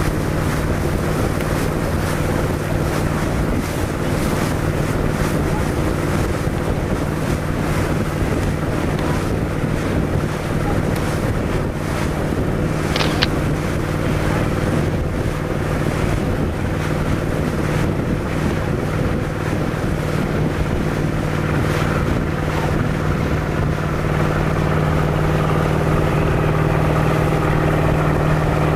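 A Lyman boat's engine running at a steady cruising speed, a constant drone, with wind buffeting the microphone and water rushing past the hull.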